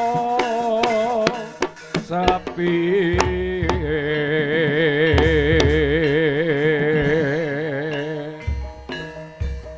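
Ebeg horse-dance accompaniment music: a singer over hand-drum strokes. The singer holds one long note with a wide vibrato from about three seconds in, then stops near the end, leaving the drums.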